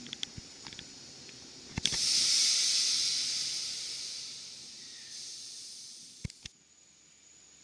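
A sharp knock, then a loud burst of compressed air hissing out of a parked electric train's pneumatic system, fading away over about four seconds and ending with two clicks. Faint clicking from the video camera's zoom mechanism is also heard.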